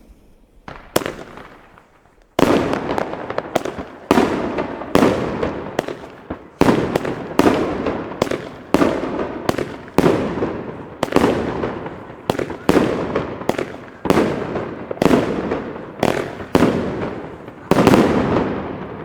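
Pyrofactory Birdkiller firework battery firing: a single sharp crack about a second in, then from about two and a half seconds a steady run of shots, a little more than one a second, each a bang that dies away. Many of the shots only puff rather than bang fully, which the shooters call Verpuffer.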